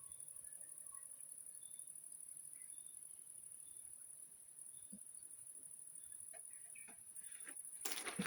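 Faint chorus of crickets and grasshoppers: a steady, high-pitched shrill with a fast pulse. Occasional short distant notes from toads calling. A few sharp knocks near the end.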